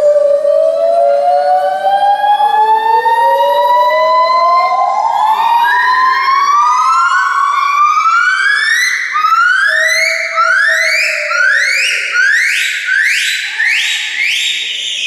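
Monkey calls: long rising whooping glides, several voices overlapping, that become shorter and faster into a quick run of upward-sweeping notes in the second half.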